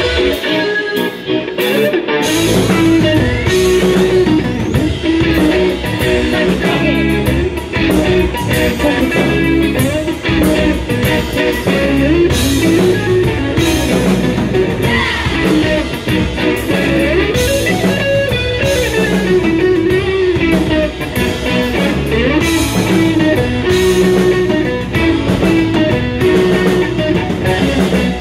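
Live instrumental rock band: electric guitar carries the melody over drum kit, percussion and bass. The guitar plays almost alone at first, and the full band comes in about two seconds in.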